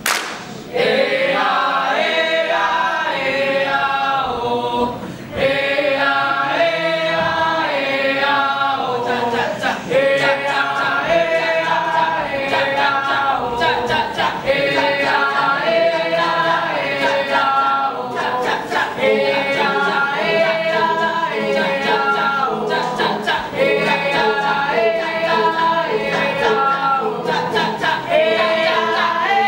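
A group of voices singing and chanting together a cappella, with short sharp hits now and then.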